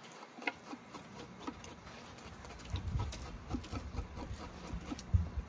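Fillet knife blade scraping the scales off a skin-on speckled trout fillet: a run of short, irregular scrapes and ticks, with a couple of low bumps.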